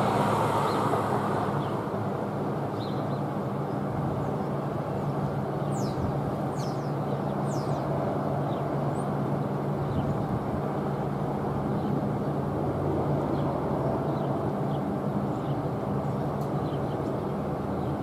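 An ACA P-10 outdoor warning siren at the tail of its wind-down: its tone fades out over the first couple of seconds, leaving a steady low hum and rushing noise. Small birds chirp now and then.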